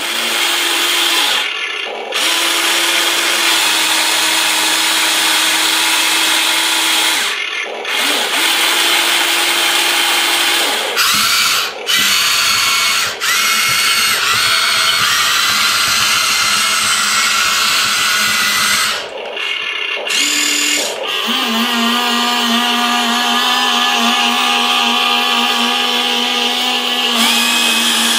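Amewi ACV730 V3 RC tracked excavator running with its sound module on: the small electric drive motors and metal gearboxes whine under the module's effects from the model's speaker. It runs in loud stretches with a few brief pauses, and the pitch changes as different functions start and stop.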